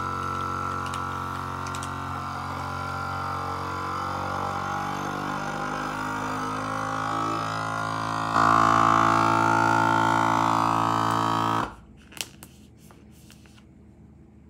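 Vacuum sealer's pump running with a steady drone, drawing the air out of the bags. About eight seconds in it gets louder, and near twelve seconds it cuts off abruptly, followed by a few clicks.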